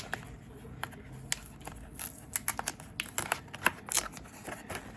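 A keyboard's retail box being opened by hand: a run of scrapes, taps and crinkles of the packaging, busier from about two seconds in.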